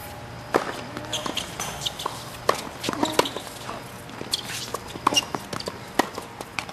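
Tennis rally on a hard court: a string of sharp pops from racket strokes and ball bounces, with quick footsteps and shoes squeaking and scuffing on the court surface.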